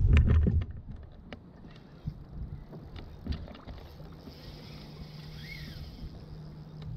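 A low rumble at the start, then small clicks and ticks of a spinning rod and reel being handled, followed by a cast, with a faint hiss as the line pays out and a faint steady low hum.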